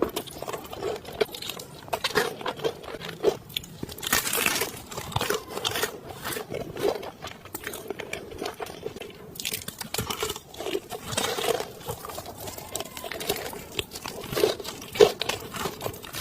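Close-up eating sounds of crunchy food: irregular bites and chewing crunches, with longer crackling stretches about four seconds and ten seconds in.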